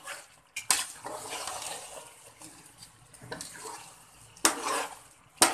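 Ghee poured from a plastic measuring jug into a large pot of crushed carrots and sugar, a steady pouring hiss that starts suddenly. About four seconds in, a louder stretch as a metal spoon stirs the mixture in the pot.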